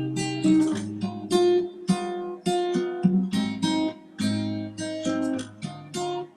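Background acoustic guitar music: plucked notes and strummed chords, a new note or chord about every half second.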